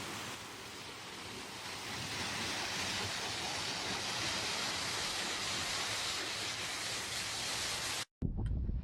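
Mountain stream running, a steady hiss of flowing water. It cuts off abruptly near the end, followed by a couple of sharp clicks over a low rumble.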